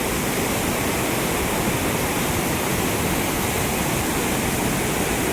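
Floodwater rushing through the open sluice gates of a dam, a steady loud roar of pouring water.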